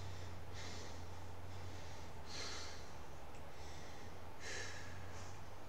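A man breathing hard from exertion during sit-ups: three forceful breaths through the mouth or nose, about two seconds apart. A steady low hum runs underneath.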